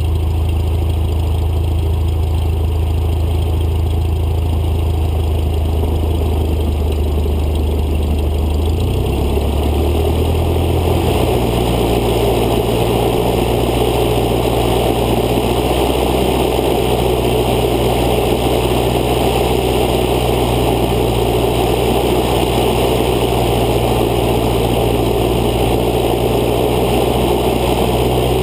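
Cessna 152's four-cylinder Lycoming engine and propeller running steadily at low taxi power, heard from outside the aircraft under the wing. The engine note steps up about ten seconds in and then holds.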